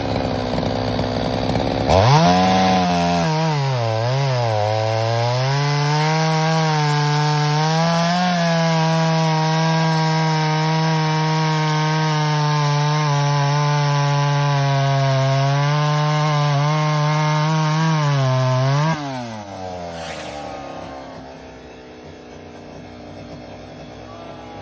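A ported vintage Poulan two-stroke chainsaw with a custom exhaust goes from idle to full throttle about two seconds in and cuts through a log. Its pitch dips briefly as it bites in, then holds steady under load. Near the end the throttle is released and it drops back to idling.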